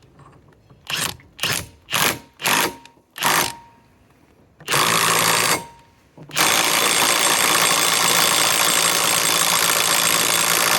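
Bosch 330 cordless impact wrench hammering: five short trigger bursts, then a burst of about a second, then a continuous run of about five seconds.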